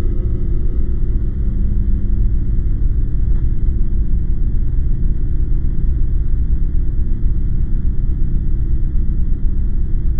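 A loud, steady low rumble, with no distinct events.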